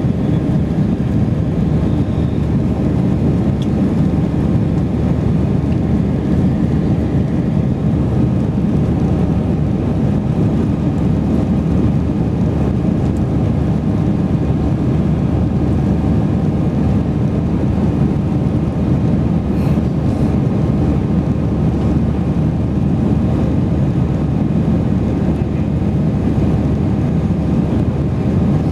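Airliner cabin noise in the climb after takeoff: engines and rushing air heard from inside the cabin as a steady low rumble.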